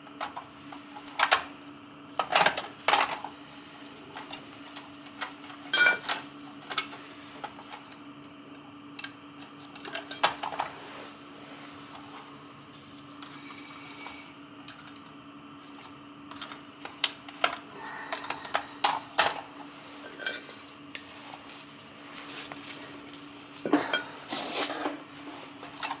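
Hand tools and wire ends clicking, snipping and clinking in irregular clusters as electrical wires are stripped and spliced together, over a faint steady hum.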